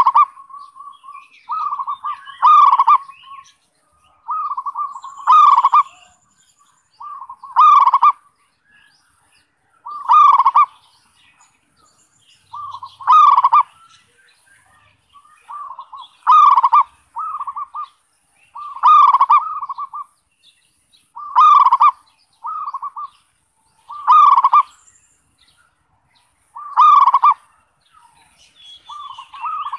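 Zebra dove (perkutut) singing its cooing song: each phrase is a short run of quick soft coos ending in one louder coo, repeated about every two and a half to three seconds.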